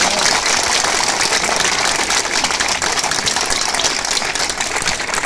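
Crowd applauding: steady, dense clapping that thins out slightly near the end.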